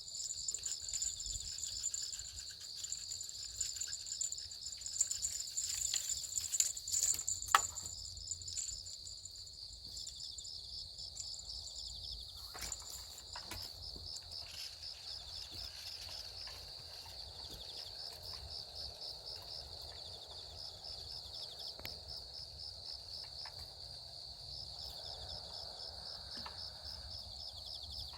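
Crickets trilling steadily in a fast, even pulse, with a second higher insect chorus that fades out about twelve seconds in. A few clicks and knocks fall over the first eight seconds, the loudest a sharp knock about seven and a half seconds in.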